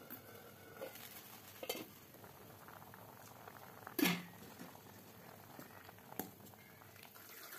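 Tamarind-chilli okra gravy simmering in a steel pot with a faint bubbling. A few short knocks sound over it, the loudest about four seconds in, and near the end a metal ladle stirs it.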